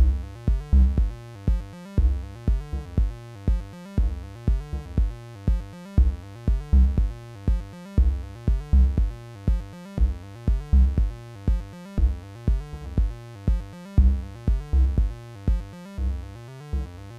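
Electronic techno groove from hardware synthesizers: a repeating pattern of short, deep pulsing notes, about three a second, that drops out briefly near the end.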